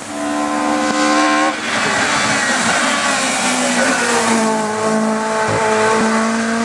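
Race car engine running at high revs under hard acceleration, its pitch climbing and then stepping down at gear changes, about one and a half seconds in and again a little past four seconds.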